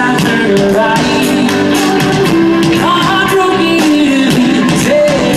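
Rock band playing live through a PA: electric guitars, drums and a lead vocal singing over them, loud and continuous.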